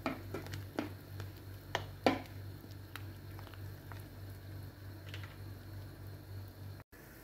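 A metal spoon stirs a pot of boiling soup, with irregular clinks and scrapes against the pot, the loudest about two seconds in, over bubbling and a steady low hum.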